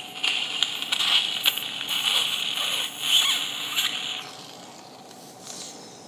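Surgical suction tip drawing blood and fluid out of a dog's nasal cavity: a steady hiss with scattered sputtering clicks that stops about four seconds in.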